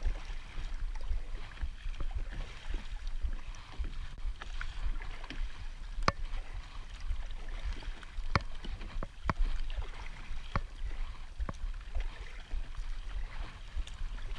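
Wind rumbling on the microphone over the wash of water around a kayak, with a few sharp clicks or knocks in the second half.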